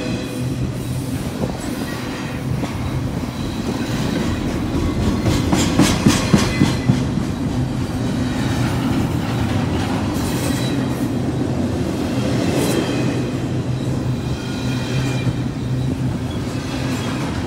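Union Pacific double-stack container train cars rolling past close by, with a steady rumble and wheels clattering over the rail joints. A burst of loud clacks comes about six seconds in.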